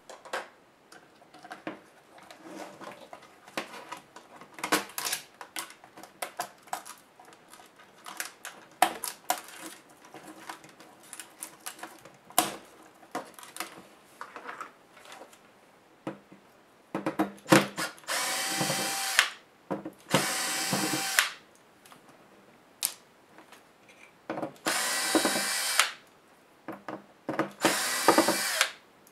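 Scattered clicks and taps of small laptop parts and screws being handled, then a cordless electric screwdriver running in four short bursts of about a second each, driving out the screen hinge screws.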